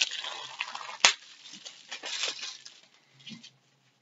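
Crinkly fabric pillow pouch rustling as the folded inflatable pillow is pulled out of it, with one sharp click about a second in. The rustling dies away after about two and a half seconds.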